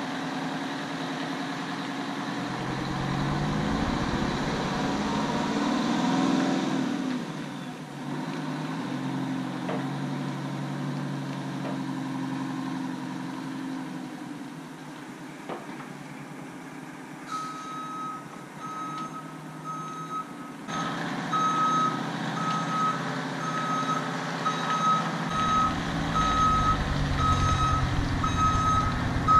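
1985 Peterbilt dump truck's Detroit Diesel 8V92 two-stroke engine running as the truck drives around, revving up a few seconds in. About two-thirds of the way through its backup alarm starts beeping steadily as the truck reverses, and the engine grows louder near the end.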